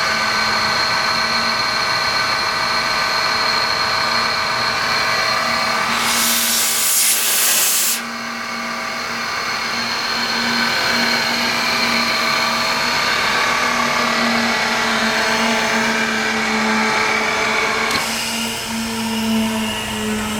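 Sullivan Palatek 5 hp rotary screw air compressor, driven from three-phase power, running with a steady hum and whine. About six seconds in, a loud hiss of air lasts about two seconds, after which the machine runs a little quieter.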